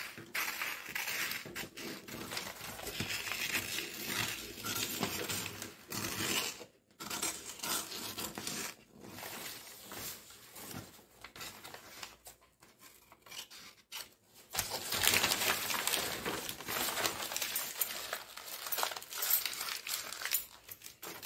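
Scissors cutting through kraft-paper pattern sheets, with the paper rustling and crinkling as it is handled and cut strips are pulled away. The sound comes and goes in stretches with brief pauses, louder for a few seconds past the middle.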